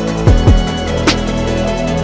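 Electronic background music with a steady beat: deep kick drums that drop in pitch, sharp claps, and steady synth tones.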